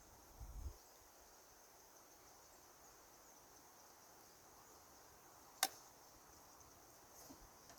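Near silence, then a single sharp crack about five and a half seconds in: one .22 rimfire shot from a Keystone Cricket single-shot bolt-action rifle.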